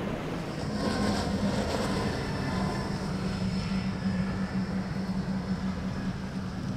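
Motorboat engines running with a steady low drone over a haze of wind and water noise.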